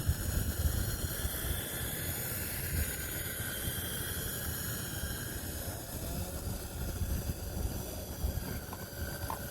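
Drill turning a rotary dryer-vent cleaning brush slowly inside the vent duct: a faint wavering motor whine over a steady low rumble and hiss.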